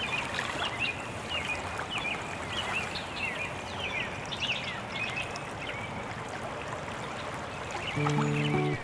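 Steady rush of a flowing river, with many short chirping bird calls scattered over it. Music with held notes comes in near the end.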